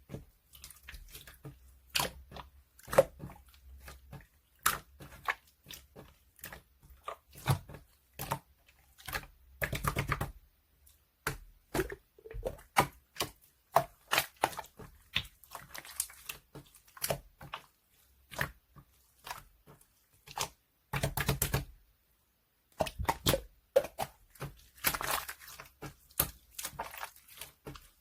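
Slime being pressed, poked and folded by hand, giving a run of irregular sharp clicks, pops and crackles, with two short sticky squelching stretches, about ten seconds in and again about twenty-one seconds in.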